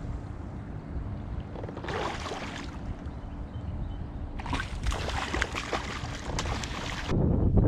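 Water splashing and sloshing around a kayak in two bursts, the second longer, over a low steady rumble.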